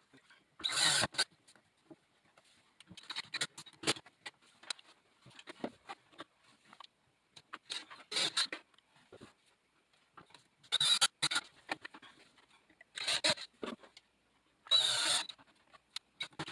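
Short, scratchy bursts of noise, about eight of them a few seconds apart, as a plastic RF receiver box is fitted and fastened against a plywood cabinet side.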